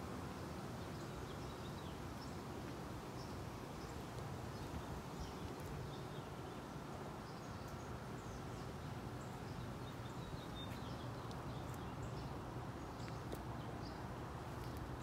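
Outdoor ambience: a steady low background noise with scattered short, high bird chirps.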